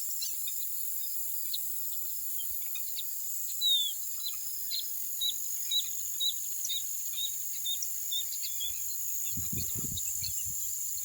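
Dawn chorus of a steady, high insect trill with a bird calling short chirps, one louder slurred note and then a run of about two chirps a second. A few low thumps come near the end.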